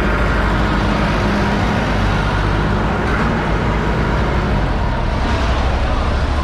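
Loud, steady background din with a low rumble, traffic-like; no single knock or cut stands out.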